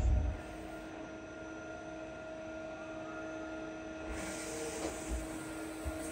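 Yang CK-3B CNC lathe running a test program that moves its axes: a steady machine hum with a thin whine. There is a low thump at the start, and a hiss joins about four seconds in.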